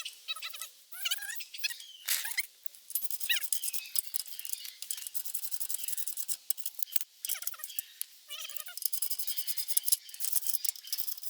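Fast light metallic clicking of bolts being run in to hold a wheel spacer on the hub, growing denser in the second half. Short high whining squeals break in now and then.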